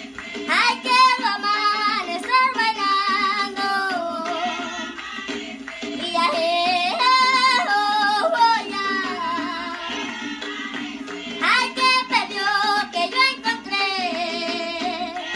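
A girl singing a Panamanian tamborito solo, in phrases of long held notes with a wide vibrato.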